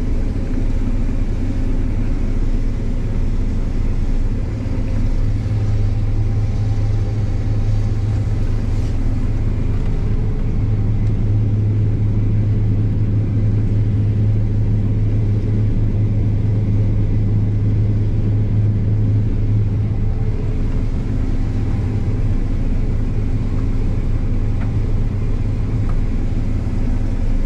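Combine harvester running steadily while harvesting, a constant low machine drone with a strong steady hum.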